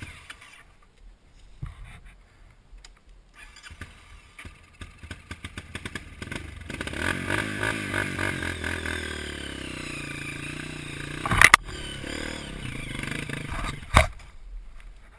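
Off-road trail motorcycle engine, firing unevenly at first and then running and revving from about six seconds in. Two sharp knocks come near the end.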